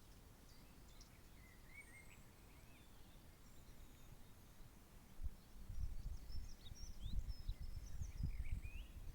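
Small birds chirping and calling now and then in short high notes. From about five seconds in, a low gusting rumble of wind on the microphone takes over as the loudest sound.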